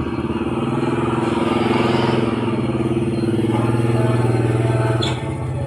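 A motor running steadily at a constant low pitch, dropping in level about five seconds in.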